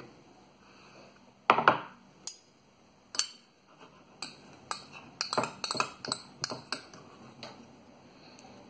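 Metal spoon clinking and scraping against a small glass bowl while stirring thick sauce, with a quick run of clinks in the middle. A louder knock comes about one and a half seconds in.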